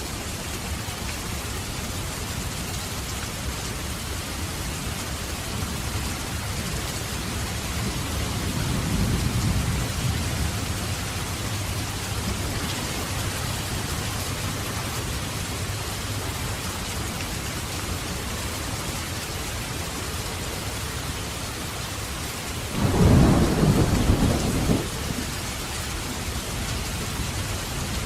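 Steady heavy rain hissing on surfaces, with a low roll of thunder swelling about a third of the way in and a sharp, louder thunderclap rumbling for about two seconds near the end.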